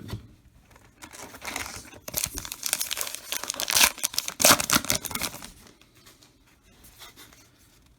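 A trading-card pack's wrapper being torn open and crinkled by hand, a rough crackling that is loudest in the middle and dies away in the last couple of seconds.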